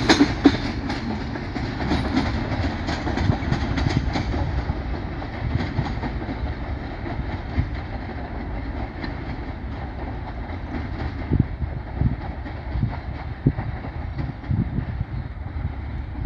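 A freight train's empty steel hopper wagons rolling away, their wheels clicking and clacking over the rail joints. The sound is sharpest in the first few seconds as the last wagon goes by, then dulls to a low rumble as the train recedes.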